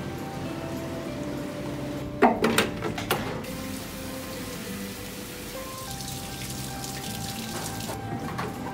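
Background music, with a few sharp clatters about two seconds in and water running and splashing in a sink later on.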